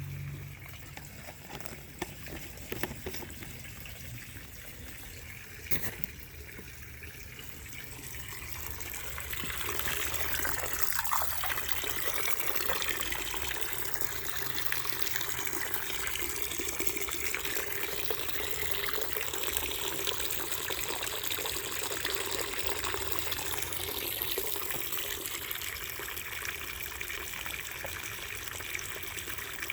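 Water running from a tap into a container, starting up about a third of the way in and then running steadily.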